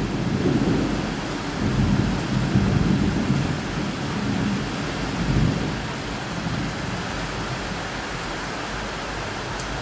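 Steady rain with low rolling rumbles of thunder that swell and fade several times.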